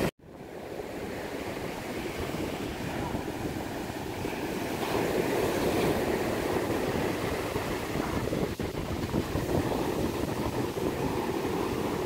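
North Sea surf breaking and washing up the sand as the tide comes in: a steady rush of waves that fades back in just after a brief cut at the start.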